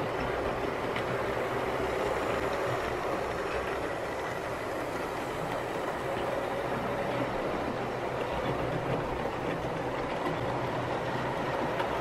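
Wrenn OO gauge West Country model steam locomotive hauling nine coaches at a steady speed: a continuous rumble of wheels on the track with a faint steady motor whine.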